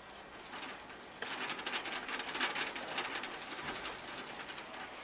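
Securing bolt being threaded by hand into the metal cover plate of an iPad kiosk stand. It gives a dense run of fast small ticks and scrapes from about a second in until near the end.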